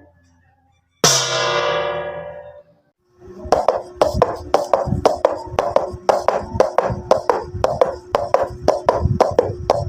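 A single ringing strike that fades away over about a second and a half, then a fast run of sharp knocks, about three a second, over a steady low hum.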